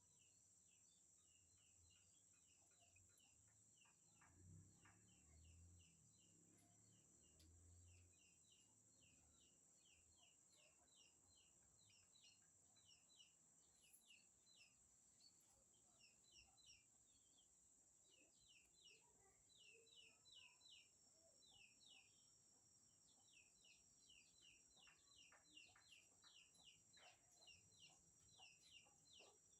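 Faint bird chirping: quick short chirps repeated several times a second, growing denser in the second half, over a steady high hiss.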